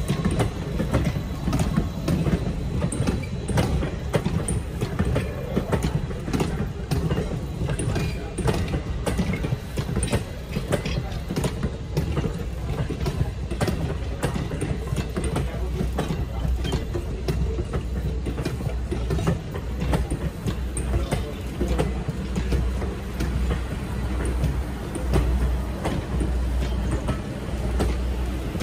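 Railroad passenger coaches rolling past, their steel wheels clicking and knocking over the rail joints in an irregular run above a steady low rumble.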